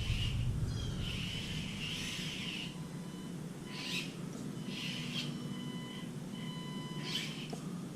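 Micro RC crawler's small electric motor and gearbox whining in short bursts of throttle as the 1/24-scale truck is driven: one longer pull, then several brief blips.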